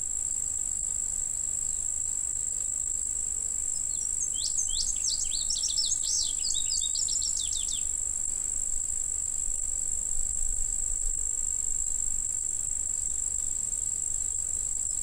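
Steady high-pitched drone of insects, with a bird giving a quick run of sweeping chirps from about four to eight seconds in.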